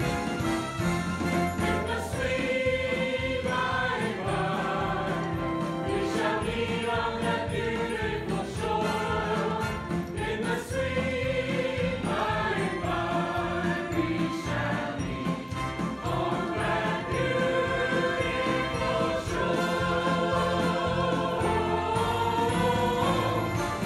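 Mixed church choir of men's and women's voices singing a sacred song in harmony, holding long notes that change every second or two.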